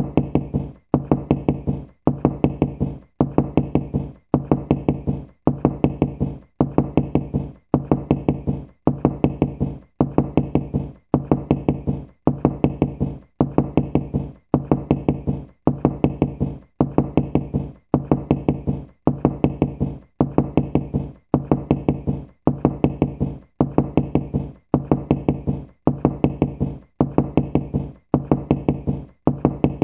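Knocking in quick clusters of about four knocks, each cluster repeating about once a second in an even, looping rhythm, with a low, resonant thud to each knock.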